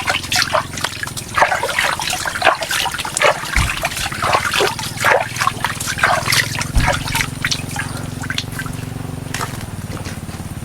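Water trickling and splashing in quick irregular spurts over a low steady hum; the splashing thins out near the end.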